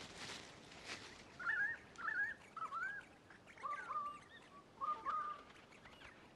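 Crimson rosella calling: a string of short whistled notes, each rising and falling in pitch, coming in quick succession over about four seconds.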